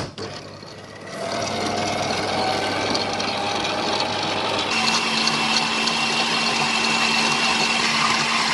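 Electric stand mixer running, its dough hook kneading pizza dough in a stainless steel bowl. The motor starts up about a second in and runs steadily, with a steady whine added about halfway through.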